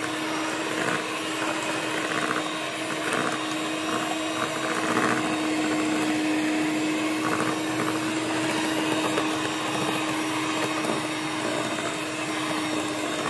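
Electric hand mixer running at a steady pitch, its beaters whipping butter cake batter in a stainless steel bowl.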